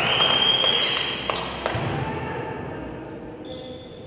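A referee's whistle blown once for about a second over gym crowd noise, then a couple of basketball bounces on the court floor and brief high squeaks near the end as the crowd noise fades.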